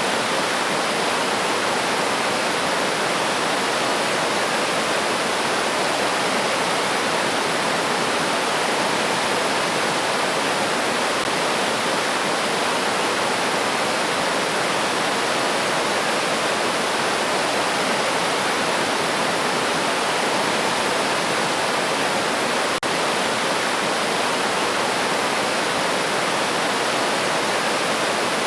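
Steady, even rush of a flowing river stream over rocks.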